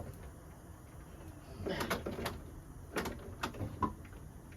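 Screwdriver prying at a moped's latched seat: a short scraping rattle about two seconds in, then a few sharp clicks and knocks, the seat not releasing.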